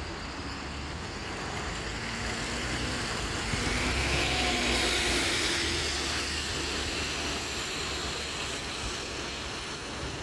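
Double-decker bus pulling away and driving past, its diesel engine running under a hiss of tyres on the wet road. It is loudest as it passes, about halfway through, then fades as it moves off.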